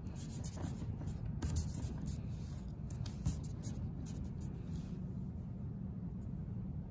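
A hand rolling a log of Sculpey polymer clay back and forth on a tabletop: soft, repeated rubbing strokes that die away about two-thirds of the way in as the log is picked up. A steady low hum runs underneath.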